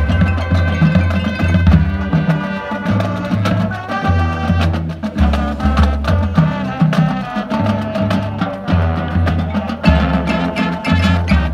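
High school marching band playing its field show: brass and woodwinds over front-ensemble percussion with marimbas, drums and an electric bass guitar, with a strongly pulsing bass line and a steady beat.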